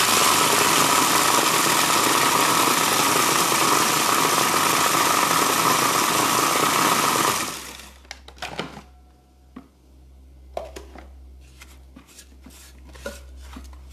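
Food processor running for about seven seconds, mixing melted butter into biscuit crumbs, with a steady motor whine, then cutting off. A few light clicks and knocks follow as the lid is taken off the bowl.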